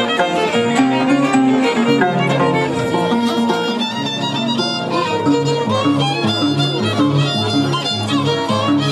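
Instrumental background music led by a violin melody, playing continuously.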